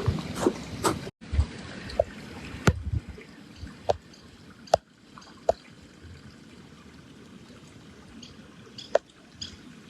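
Small lake waves lapping at the shore, with separate sharp splashes every second or so. The sound cuts out completely for a moment about a second in.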